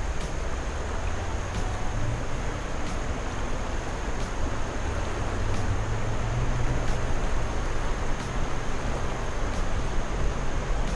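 Steady outdoor background noise: a low rumble under an even hiss, with a faint high steady tone.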